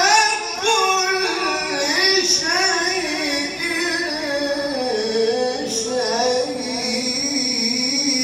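A male Quran reciter's unaccompanied voice holding a long, melodic drawn-out note, ornamented with quick wavering turns. About five seconds in, the pitch sinks lower and settles there.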